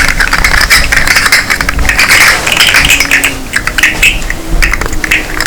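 A fidget toy being clicked and rattled rapidly: a dense, irregular run of small hard clicks with a scraping rattle.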